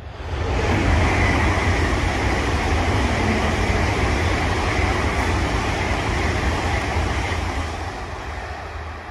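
Deutsche Bahn ICE high-speed electric train passing at speed on the line: a loud, steady rush of wheels on rails and air with a deep rumble underneath. It fades over the last couple of seconds as the end of the train goes by.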